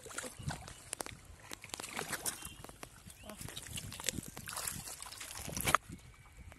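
Hands splashing and sloshing in shallow muddy water while groping for fish, in irregular strokes, with one sharp louder splash near the end.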